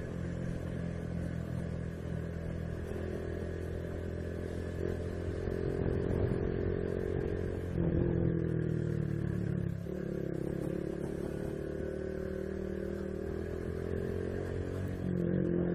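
Honda Biz 125's small single-cylinder four-stroke engine running under way, its note stepping up about eight seconds in, dropping two seconds later and rising again near the end, with some rattling from the bike on a potholed road.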